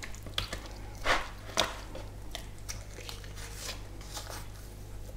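Raw squid being peeled by hand: short wet squelches and sticky pops as the wings and skin are pulled away from the slippery body, the loudest two about a second and a second and a half in.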